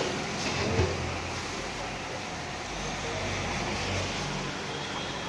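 Dosas sizzling on a hot iron griddle: a steady hiss, with a low street rumble underneath and a sharp click about a second in.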